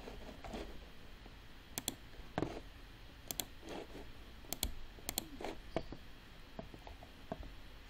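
Faint computer mouse clicks: a few sharp ticks spread over several seconds, several of them quick pairs, with softer taps between.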